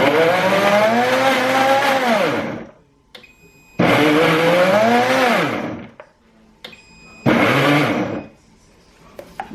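Elechrome high-speed blender pulsed three times on walnuts: each pulse the motor spins up, whirs for one to two and a half seconds and winds down, the last pulse the shortest. The pulse feature still grinds the nuts fine toward a powder.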